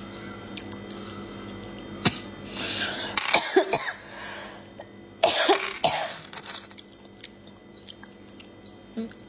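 Cooked sea snails being sucked out of their shells by mouth: two loud slurps, the first about two and a half seconds in and lasting about two seconds, the second shorter about five seconds in, with a sharp click of shell just before the first.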